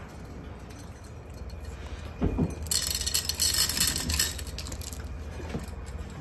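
Bright clinking and jingling rattle of small hard objects for about a second and a half, near the middle, just after a dull thump.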